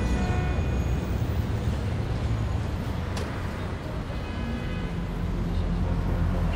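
Street traffic: a steady low rumble of cars, with a low hum coming in about two-thirds of the way through.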